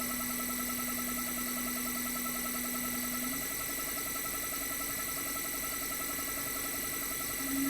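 Toshiba twin rotary inverter compressor (DA91A1F-42F) running with a steady hum and high electronic whines; its pitch steps up about a third of the way in and again near the end, getting louder, as the inverter raises the speed in stages.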